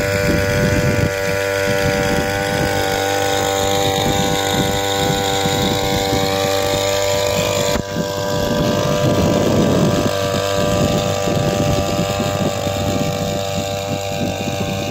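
Small engine of a motorized backpack power sprayer running steadily at a constant speed while it pumps spray mist from the lance. There is a brief dip and change in the sound about eight seconds in.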